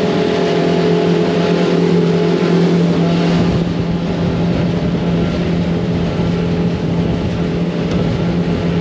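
Motorboat engine running at a steady speed, a constant hum under rushing wind and water noise; the low rushing grows stronger about three and a half seconds in.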